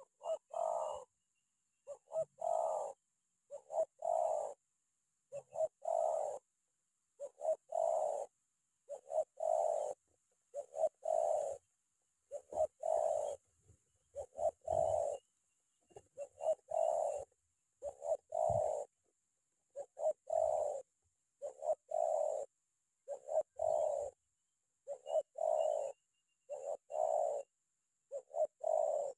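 Spotted dove cooing in a close, rapid series of phrases, one roughly every second and a half. This is the 'tekanan rapat' call type used to lure wild doves.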